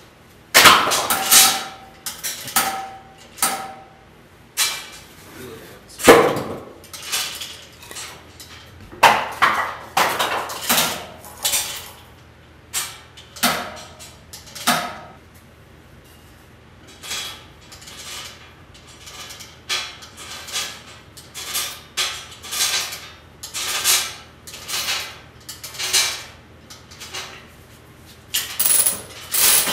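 Irregular metallic clanks and knocks, some ringing briefly, from parts being handled and fitted on a locomotive truck's frame and journal boxes.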